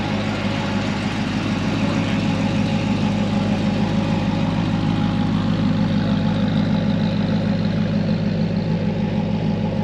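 Chevrolet C6 Corvette's V8 running at low idle-like speed with a steady low rumble as the car creeps away.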